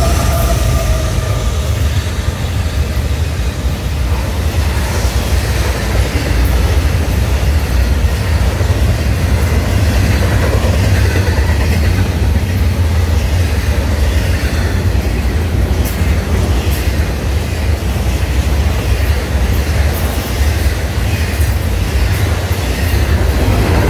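Florida East Coast Railway freight train's double-stack intermodal container cars rolling past at speed: a loud, steady low rumble of wheels on rail with scattered sharp clicks.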